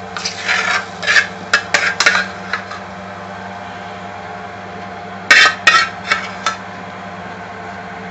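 A metal utensil scraping and knocking against a pan as curry is spooned out into a serving dish, in two clusters of quick strokes with a pause between them. A steady hum runs underneath.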